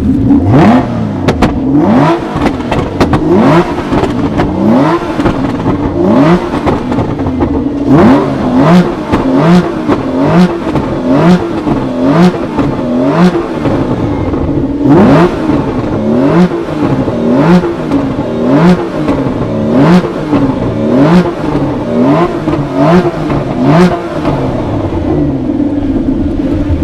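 Aston Martin CC100's V12 engine being revved over and over in short throttle blips, about one a second, the pitch rising sharply and dropping back each time. Sharp cracks sound among the blips.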